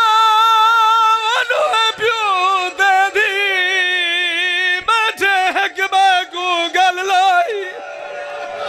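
A zakir's sung mourning lament at a majlis: one man's high voice holding long, wavering notes that step down in pitch partway through. It breaks off about seven and a half seconds in.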